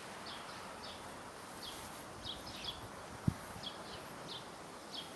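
A small bird chirping repeatedly in short, slightly falling notes over faint steady background noise, with a single low knock about three seconds in.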